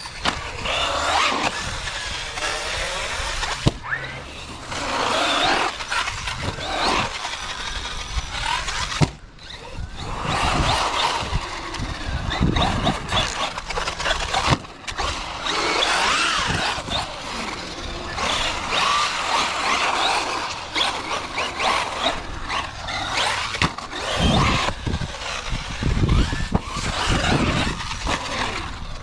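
Brushless electric motor of a Traxxas Sledge RC monster truck whining up and down in pitch as it repeatedly accelerates and slows, with tyre noise and several thumps from the truck hitting the ground.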